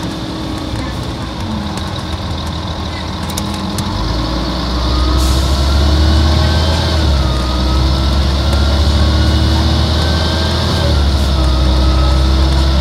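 Volvo Olympian bus's Volvo D10A-245 six-cylinder diesel engine running and working harder from about four seconds in, its note getting louder and heavier. A whine climbs and then drops back twice, as the ZF 5HP590 automatic gearbox shifts up.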